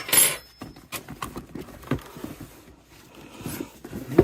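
Cardboard box and packaging being opened and handled: a short loud scrape or swish just after the start, then light rustling and scattered clicks.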